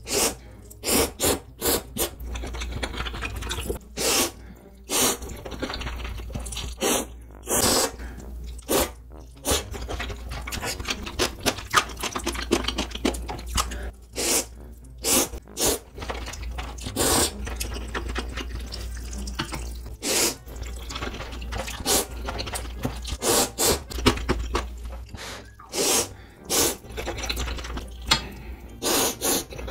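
A person slurping spicy ramen noodles from chopsticks, with wet chewing between slurps. The slurps come as short, repeated strokes, about one or two a second.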